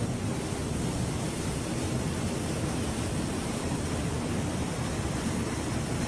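Steady rushing of water from a waterfall that is mostly frozen over, still flowing under and through the ice into an open pool. The noise is even and unbroken.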